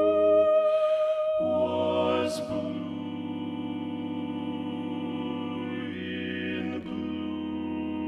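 Multitracked a cappella choral singing, every voice part sung by one male singer: slow, sustained chords on the words 'A moment, ere the bird had passed'. The lower parts drop out about half a second in and come back about a second later.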